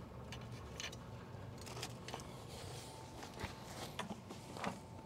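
Faint, scattered clicks and rubbing from hands working at a plastic conduit fitting on a pool pump motor, over a low steady hum.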